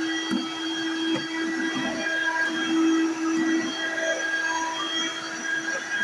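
Vacuum cleaner running steadily on a hardwood floor, its motor giving a constant hum with a high whine over it, and short knocks and rattles as the head bumps along the baseboard.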